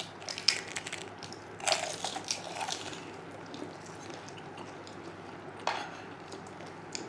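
Crisp fried pani puri shells crunching as they are bitten and chewed: a cluster of crackly crunches in the first three seconds, then a few faint clicks of chewing.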